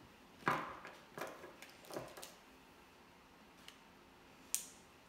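Plastic parts of a toy action figure being handled and pushed together: a series of light clicks and knocks, the loudest about half a second in, then a small tick and a sharp click near the end.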